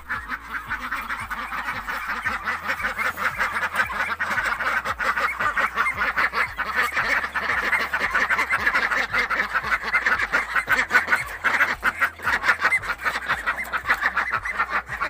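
A flock of white domestic ducks quacking together: many loud, overlapping calls in a continuous chorus.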